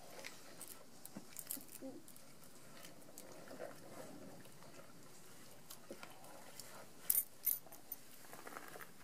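Black bear cubs eating peanuts and soft food from a bowl: scattered light clicks, taps and crunches, with a few sharper clicks about seven seconds in.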